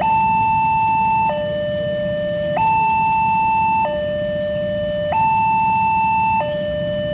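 Railway level-crossing warning alarm from the loudspeakers on the signal mast, alternating a higher and a lower tone, each held about a second and a quarter: the signal that a train is approaching and the road is closed. A low rumble of idling traffic runs beneath it.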